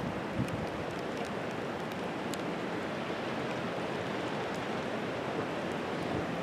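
Steady hiss of wind and falling precipitation, with scattered sharp ticks of hailstones striking.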